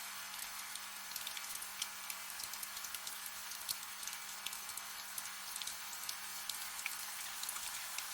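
Soft, steady rain: an even hiss with many scattered individual drops ticking through it, over a faint steady low hum.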